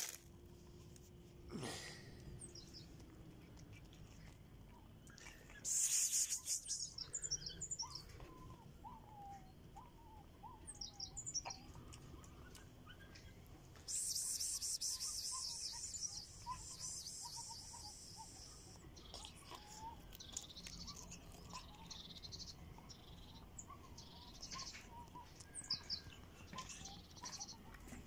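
Small birds chirping and singing, with two bursts of fast, high trilling, the second lasting a few seconds.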